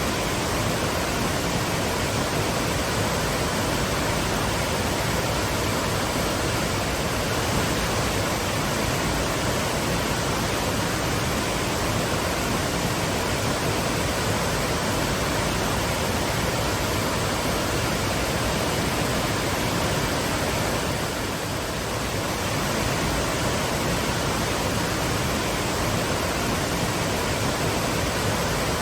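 Waterfall pouring steadily: a dense, even rush of falling water with no other sounds, dipping slightly for a moment about two-thirds of the way through.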